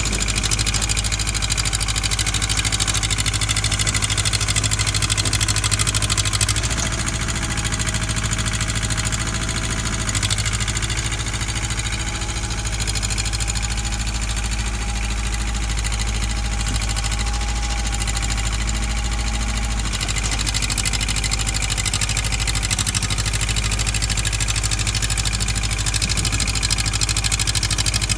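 Engine of a digging machine running steadily near idle, its pitch shifting slightly about six and ten seconds in.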